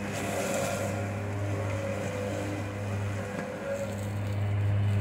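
Remote-controlled mower's engine running with a steady low hum as the machine cuts through tall weeds and grass.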